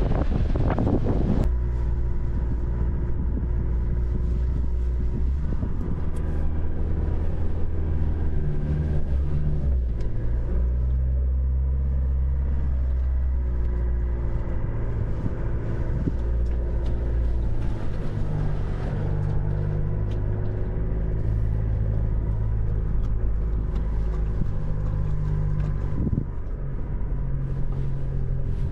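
After a second or so of wind on the microphone, a four-wheel-drive's engine runs under load from inside the cabin as it drives over soft sand through the dunes, the engine note shifting up and down several times.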